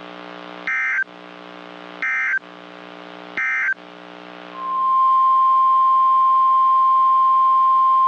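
NOAA Weather Radio Emergency Alert System tones: three short warbling bursts of SAME digital data over a steady buzzing receiver hum. Then, about four and a half seconds in, the loud steady 1050 Hz warning alarm tone starts and holds.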